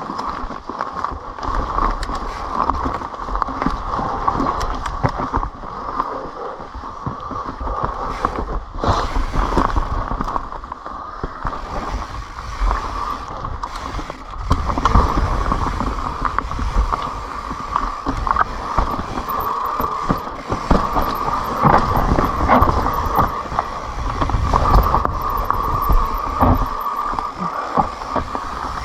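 Kona Honzo ESD hardtail mountain bike ridden down a dirt trail: tyre rumble, chain and frame rattles with many small knocks over rough ground, under a steady buzz that carries through the whole ride.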